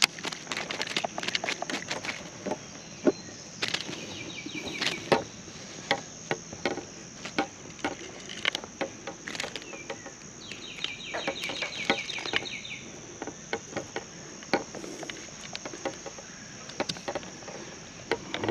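Clicks, taps and rubbing from hands working a small smallmouth bass and lure free of a wooden landing net, over a steady high insect drone. A short rapid trill sounds twice, about four seconds in and again around eleven seconds.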